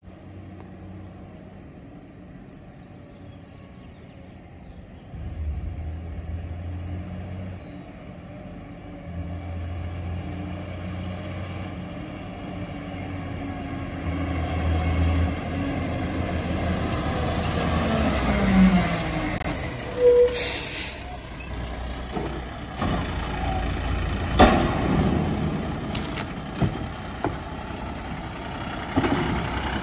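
A 1996 Volvo WXLL garbage truck with an Amrep side-loader body approaches, its diesel engine growing louder as it nears. A little over halfway through comes a loud hiss of air brakes as it stops. In the last few seconds there are scattered knocks and thuds of cardboard boxes being thrown into the hopper.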